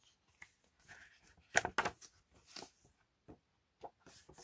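Printed photo cards handled and flipped by hand: a series of short paper rustles and clicks, the loudest cluster about a second and a half in.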